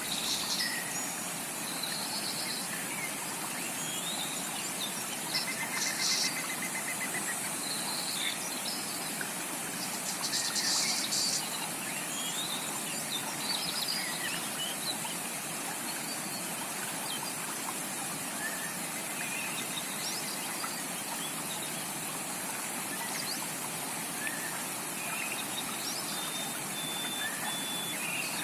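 Steady rush of a flowing jungle stream, with tropical birds calling and chirping over it and a constant high-pitched buzz; the bird calls are loudest about six and eleven seconds in.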